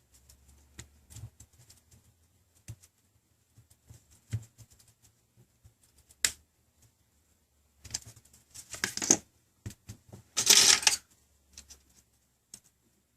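Small clicks and taps from handling a tablet's plastic parts and small tools on a workbench, scattered and irregular, with a quick run of clicks about eight seconds in and a louder short rattle about ten and a half seconds in.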